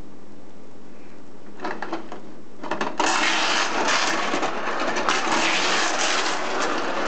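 Technofix Coney Island tin toy roller coaster running: a few clicks about one and a half seconds in, then from about three seconds a loud, steady metallic clatter of the mechanism and the small cars on the tin track.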